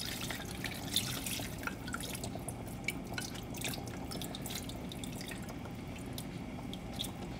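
Water poured from a bowl into a hot pan of curry, dripping and splashing in small scattered drops, with light taps of a spatula scraping the bowl out.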